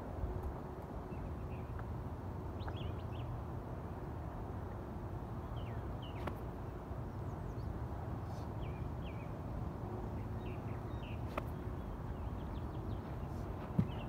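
Outdoor ambience: a steady low rumble with birds chirping in short, scattered calls, and a sharp tap just before the end.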